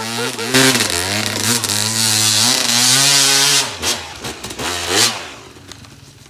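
Yamaha YZ250 two-stroke dirt bike engine revving up and down under hard throttle as it climbs a snowy slope, with a loud hiss over it from about half a second to about four seconds in. The engine note fades away near the end as the bike moves off.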